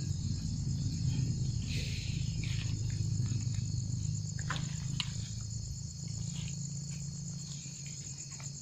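Night-time crickets and other insects trilling steadily in a continuous high chorus, over a low steady hum, with a few faint clicks.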